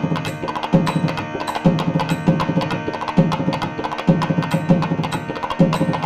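Thavil barrel drum played in a fast run of sharp strokes, with deep bass strokes landing about once a second, over a steady held drone.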